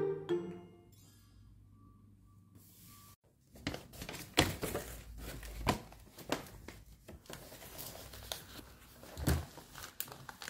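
Cardboard takeaway food boxes being handled and opened on a table: irregular knocks and thunks with paper rustling, starting a few seconds in after music rings out and a short quiet spell.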